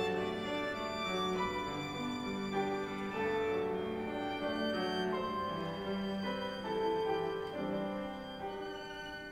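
Violin playing a slow, sustained melody over cello and piano accompaniment, the phrase growing softer near the end.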